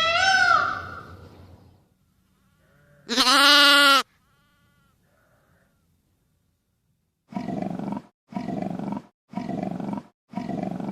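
A cat's meow, then a pause and a single loud drawn-out animal call about three seconds in. Near the end come four short grunts about a second apart, each from a different animal in turn.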